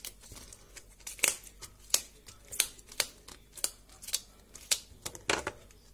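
Tough outer leaves being snapped off a fresh artichoke by hand: a series of short, crisp snaps, about one every half second to second.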